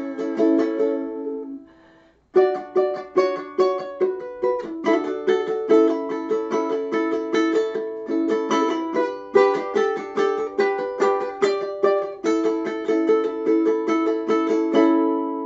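Ukulele strummed in chords. The strumming lets ring and stops briefly about two seconds in, then resumes in a steady rhythm.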